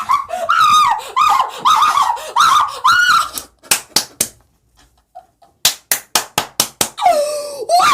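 A person yelling without clear words for about three seconds, then sharp smacks: three in quick succession, a short pause, then about six more in a fast run, before the yelling starts again near the end.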